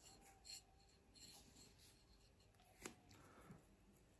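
Near silence: faint scratching of a small paintbrush working over a plastic miniature, with a light tick nearly three seconds in.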